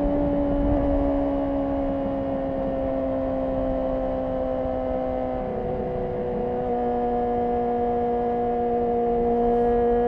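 2010 Honda CBR600RR's 599 cc inline-four with a Yoshimura RS5 exhaust, cruising at motorway speed. Its steady note sinks slowly as the bike eases off, then settles about halfway through and holds level.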